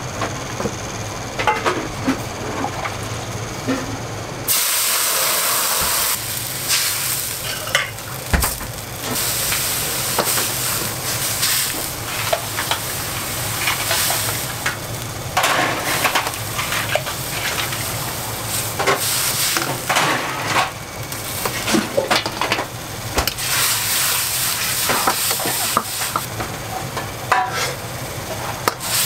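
Wok stir-frying: a metal ladle clanking and scraping against the wok, with a loud sizzle that starts suddenly about four and a half seconds in and rises and falls as the food is tossed.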